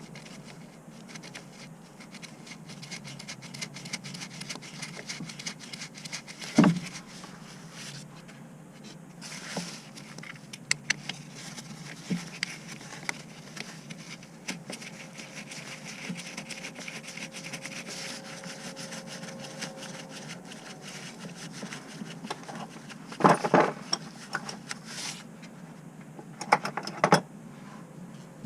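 Scattered metallic knocks and clinks of tools and parts being handled during work on a car, over a steady background hum. A single sharp knock comes about a quarter of the way in, and a burst of several knocks comes near the end.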